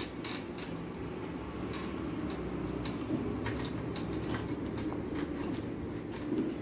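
Fingers mixing rice and curry on a steel plate, with soft squishing and faint light clicks over a steady low background hum.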